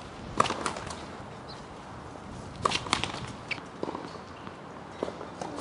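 A few sharp knocks, the loudest about half a second in and near the middle: a tennis ball struck by racket and bouncing on a hard court.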